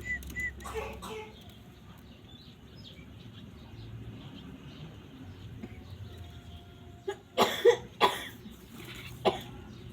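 Black francolin calling: a few harsh, grating notes in a quick cluster about seven seconds in, and one more near the end, after a quiet stretch.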